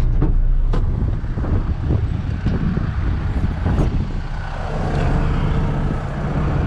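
Heavy truck diesel engine idling with a steady low rumble, with a few knocks and rustles of someone climbing down out of the cab.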